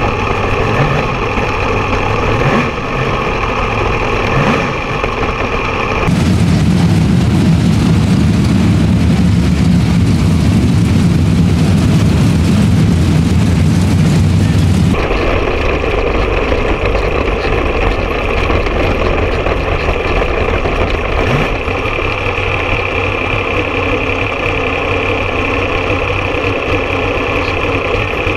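Sprint car V8 engines. Onboard, the car's engine runs steadily at low speed; about six seconds in it gives way to a louder, denser sound of a pack of sprint cars running on the dirt track, and about fifteen seconds in the single onboard engine returns.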